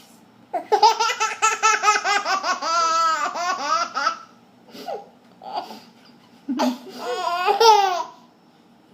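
Baby laughing in two bouts: a long run of quick ha-ha-ha pulses, then a shorter bout near the end, with a few small sounds between them.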